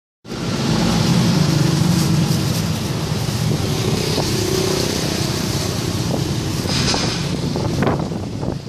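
Road traffic: motor vehicle engines running and passing by, a steady rumble with a louder vehicle going past near the end.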